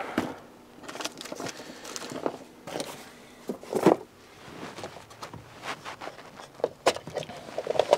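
Someone rummaging for a small part: scattered light clicks, knocks and rustles of small objects being moved about, with one louder knock about four seconds in.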